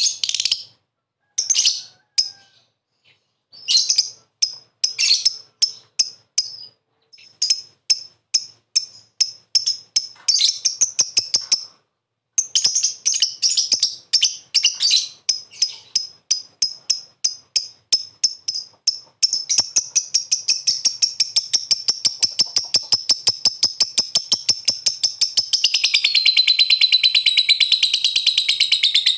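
A lovebird calling in short bursts of sharp, rapid chirps with brief pauses. From about twenty seconds in it becomes one unbroken, fast chattering trill (the 'ngekek' song), dropping a little in pitch and growing denser near the end.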